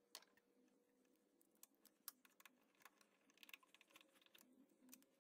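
Faint scattered clicks and taps of hard plastic being handled as a coolant recovery tank is set and pressed into place, over a faint steady hum.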